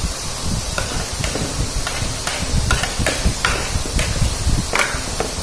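Close-up eating sounds of chicken adobo being eaten by hand: chewing and lip-smacking, with a series of short sharp clicks and smacks over a low rumble.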